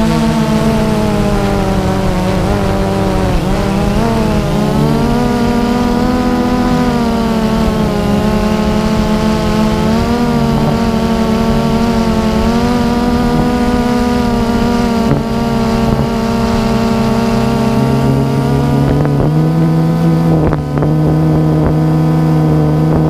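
DJI Phantom 2 quadcopter's motors and propellers humming in flight: a steady buzzing drone whose pitch wavers up and down as the motor speeds change. A few brief clicks come near the end.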